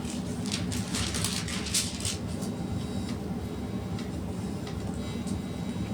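A steady low hum, with a short spell of rustling and light clicks in the first two seconds.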